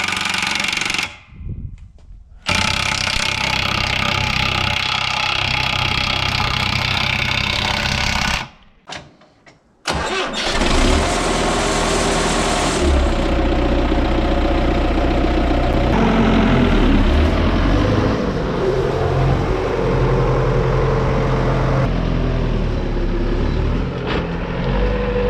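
Belarus MTZ 892 tractor's diesel engine running, the sound cut off twice for a second or two. From about ten seconds in, the deep, steady engine sound is at its strongest.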